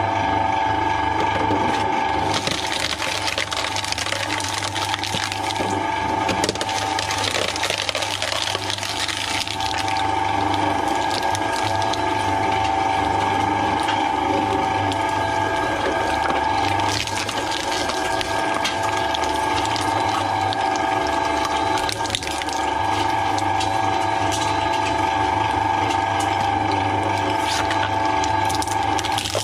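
Twin-shaft shredder running with a steady motor and gearbox whine and hum, its toothed cutters crunching and tearing through foam and plastic toys. The crackle of material breaking starts about two seconds in and goes on unevenly.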